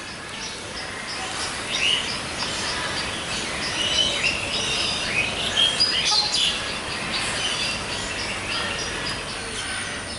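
Many birds chirping at once: short, high chirps overlapping throughout, over a steady background noise.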